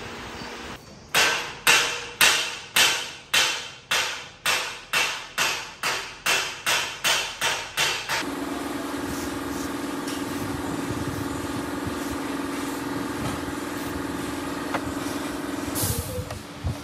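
Edited intro sound effects: about sixteen heavy hits that come faster and faster, then a steady low hum that ends in a short swell.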